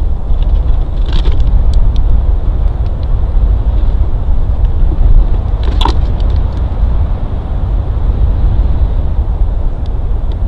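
Wind rumbling steadily on a treetop nest-cam microphone. Over it come a few sharp cracks of nest sticks as a bald eagle works them with her beak, the loudest about six seconds in.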